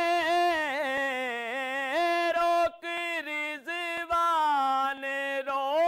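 A man singing a naat solo with no instruments: long held, drawn-out notes with ornamented turns in pitch, broken by several short pauses in the second half.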